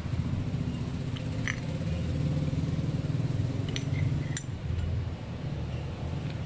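A few light metallic clinks as the grass cutter gearbox's blade-holder cup and small steel parts are handled and set down on a tile floor, over a steady low hum.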